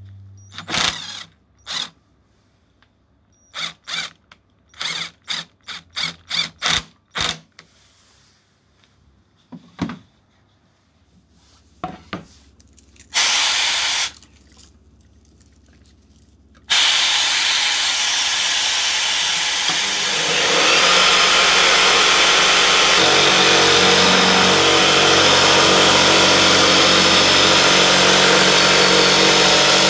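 A jigsaw mounted upside down under a homemade jigsaw table: after a string of sharp clicks and knocks and a brief burst about 13 s in, the saw runs continuously from about 17 s, and from about 20 s its sound deepens as the blade cuts through a plywood sheet.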